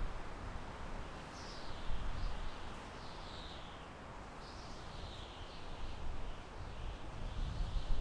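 Soft wind blowing through forest trees, a steady rush with a gusting low rumble. A bird calls several times over it in short, high, falling phrases.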